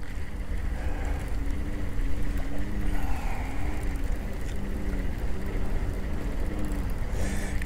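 Baitcasting reel cranked steadily to retrieve a lure: a low whirr from the reel that swells and fades with each turn of the handle, a little under twice a second, over a low rumble.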